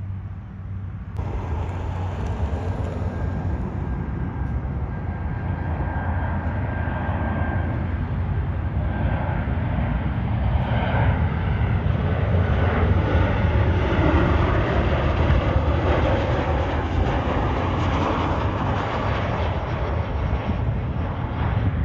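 Boeing 737-800's CFM56 jet engines on final approach: a steady rushing roar that swells as the airliner passes low overhead, loudest around the middle. A faint high whine sits on top for the first several seconds.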